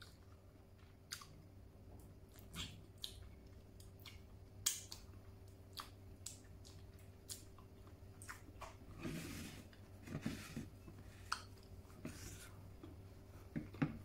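A person chewing a mouthful of food with the mouth closed, close to the microphone, with short wet clicks and smacks scattered throughout.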